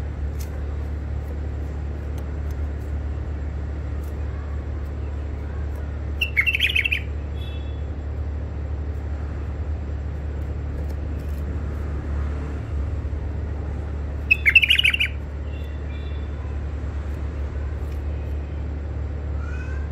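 White-eared bulbul calling in two short bursts of quick chirps, about six seconds in and again about eight seconds later, the second louder, each followed by a few faint short high notes. A steady low hum runs underneath.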